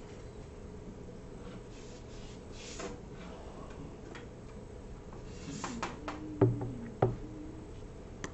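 Quiet room tone with scattered faint clicks and taps, then two sharper knocks in quick succession, about half a second apart, some three quarters of the way through.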